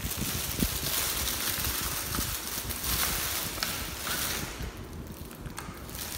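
Clear plastic packaging crinkling and rustling as it is handled, strongest over the first four seconds or so and then easing, with a few small clicks.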